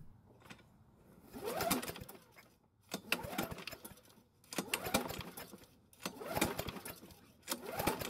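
Recoil starter rope on a Poulan Pro walk-behind mower pulled five times, about once every second and a half, cranking the engine over without it starting, during a spark check with an inline spark tester.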